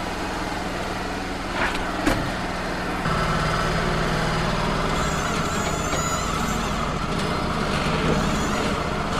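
Wood-Mizer LT35 hydraulic portable sawmill's engine running steadily, with a couple of knocks about two seconds in. About three seconds in, the sound grows louder and a steady whine joins the engine hum.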